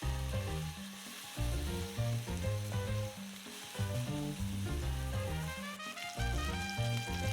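Latin background music with plucked notes and a bass line, over the steady sizzle of food frying in a pan.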